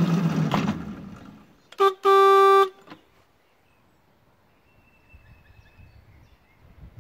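A miniature railway shunter's motor running with a steady low hum that dies away about a second in, followed by a horn: one short toot, then a longer single-note blast.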